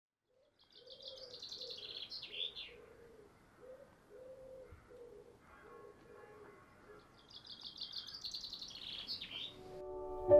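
Garden birdsong: a songbird sings two short phrases about six seconds apart, each a quick trill running down into lower notes. Underneath, a lower cooing call repeats. Soft piano music comes in right at the end.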